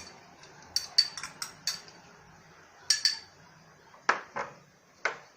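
A spoon knocking and clinking against a mixing bowl: a quick run of sharp taps about a second in, then a few single knocks spaced about a second apart.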